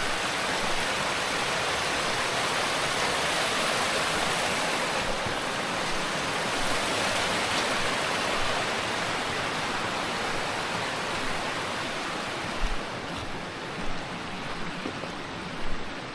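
Steady rush of flowing water, easing a little near the end, with a few soft low thumps in the last few seconds.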